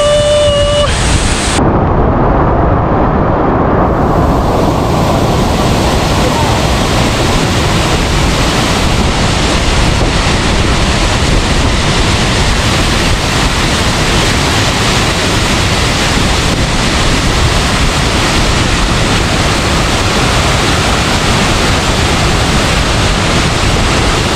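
Loud, steady rush of a waterfall heard close up. About two seconds in it turns muffled for a couple of seconds, then comes back full.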